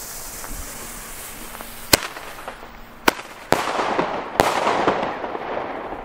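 Weco Flashbang firecrackers going off: a high fuse hiss fades, then four sharp bangs come within about two and a half seconds, the last two trailing off in crackle and echo.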